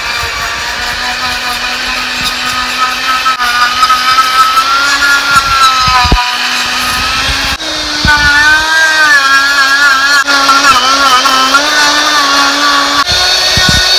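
Long-shaft die grinder with a samurai carving bit, running at high speed and cutting into dry bougainvillea deadwood. It gives a loud steady whine whose pitch wavers as it cuts and steps up a little about halfway through.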